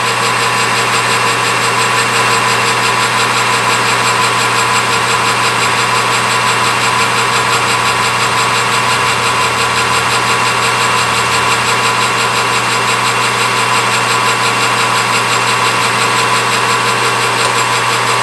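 Metal lathe running at a steady speed, its chuck spinning a small steel pin. It makes an even hum with a high whine.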